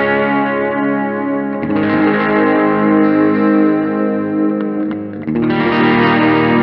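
Distorted electric guitar playing sustained chords, which change about two seconds in and again near the end.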